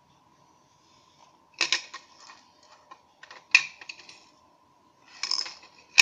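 Plastic clicks and knocks from handling a disassembled Nikon SB-600 flash unit and its parts on a hard tabletop, coming in irregular clusters with the sharpest knocks about a second and a half in, about three and a half seconds in, and right at the end. A faint steady high tone sits underneath.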